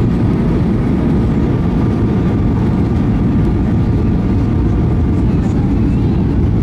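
Jet airliner cabin noise on final approach with flaps extended: a steady low rumble of engines and rushing air heard from inside the cabin, with a faint steady whine above it.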